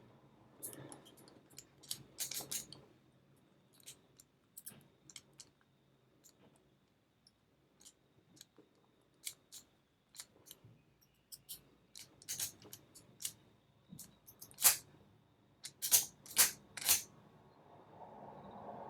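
Scattered light clicks and rattles of a four-wheel zinc-alloy combination padlock being handled, its number wheels jiggled and its shackle tried. The lock stays shut although 1-2-3-4 is dialled, because the combination has shifted. A louder cluster of clicks comes near the end.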